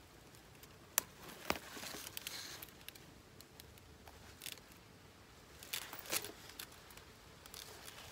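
Nylon netting of a fish trap being pulled and torn open by hand: two sharp clicks about a second in, soft rustling, then another cluster of clicks and rustles later on.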